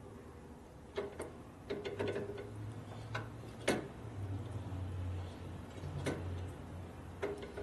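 Irregular sharp mechanical clicks and light knocks from hands working the brake hydraulics, with a low steady hum through the middle few seconds.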